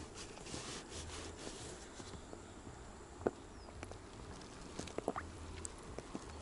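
Light water splashing and lapping as a small bream is drawn along the surface on the line, with a few sharp splashes in the second half.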